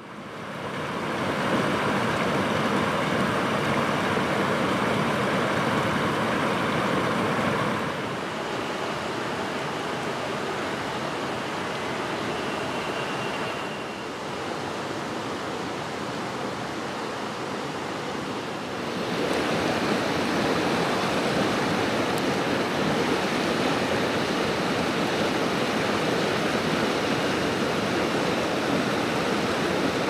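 Mountain stream rushing and splashing over rocks, a steady roar of water. It fades in over the first second or so, and changes in loudness and tone twice, about 8 and 19 seconds in.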